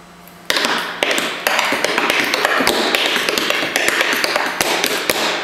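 Tap shoes dancing on a portable wooden tap floor built with a small air space underneath for resonance. A fast, dense stream of crisp taps starts about half a second in and keeps going.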